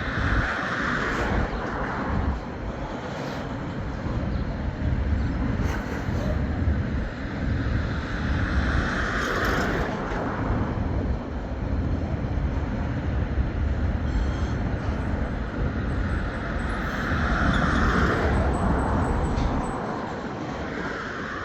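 Freight train rolling past, a steady rumble with wheels clicking and knocking over the track. About every nine seconds a louder hissing swell rises and fades.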